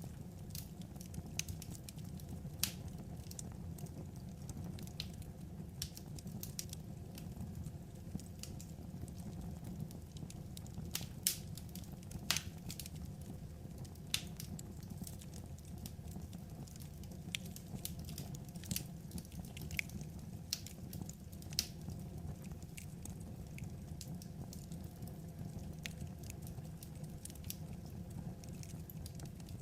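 Wood fire crackling: a steady low sound of the flames with irregular sharp pops and snaps from the burning logs.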